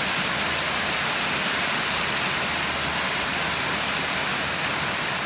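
Steady rain falling on a corrugated metal roof: an even, unbroken hiss.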